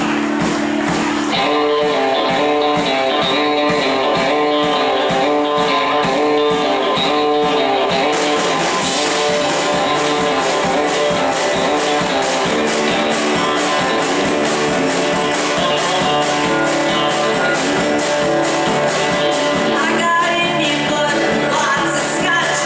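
Live band playing a country-rock song: acoustic and electric guitars, bass guitar and drum kit, with a woman's voice singing near the end.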